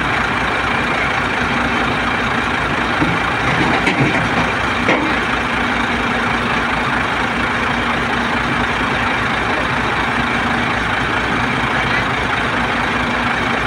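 Heavy diesel engine idling with a steady low drone, with a few light clicks about four to five seconds in.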